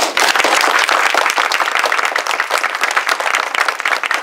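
Audience applauding: many hands clapping at once, beginning suddenly.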